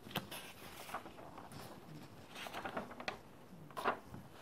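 Faint paper rustling with light ticks and taps as a written sheet is handled and taken off the desk, leaving a blank one.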